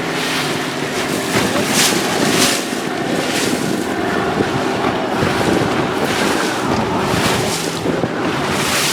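Boat under way: a steady engine hum under rushing water, with repeated splashes of water against the hull and wind buffeting the microphone on rough water.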